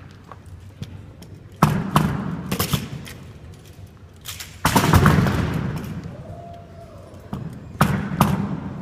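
Rifle shots fired one after another, about six sharp cracks at uneven spacing, each trailing off in a long echo; the loudest comes about halfway through.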